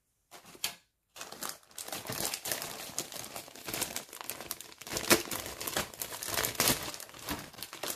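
Clear plastic bag crinkling and rustling as a plastic model-kit parts sprue is lifted and pulled out of it. It starts with a short rustle, then dense crackling with quick sharp ticks from just over a second in.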